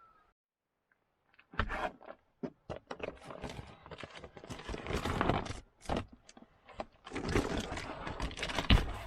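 Scraping and clattering, like things being handled and moved about, with many sharp clicks and knocks and one harder knock near the end. It starts about a second and a half in.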